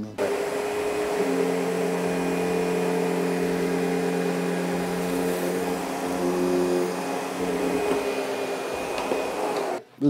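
SEBO Essential G4 commercial upright vacuum running with its powerhead on low-pile commercial carpet: a steady motor hum with a thin high whine. It cuts off suddenly just before the end.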